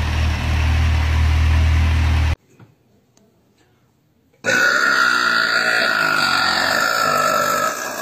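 A Kawasaki motorcycle engine running at a steady idle, cut off suddenly about two seconds in. After a short gap of near silence, a young woman lets out one long, loud burp lasting over three seconds.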